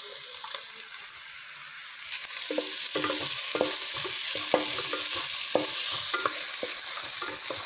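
Diced green beans, onion and carrot sizzling in hot oil in a nonstick pan, the sizzle growing louder about two seconds in. A wooden spatula stirs and scrapes across the pan in short strokes, about three a second.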